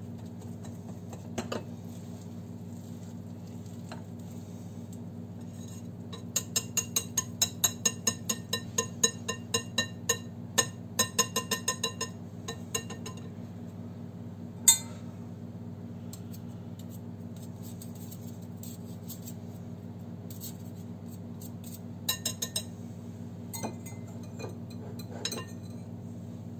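Wire whisk beating a stiff batter in a glass mixing bowl, the wires clinking against the glass in quick strokes about three a second, with one sharp knock a little past the middle and a few more clinks near the end. A steady low hum runs underneath.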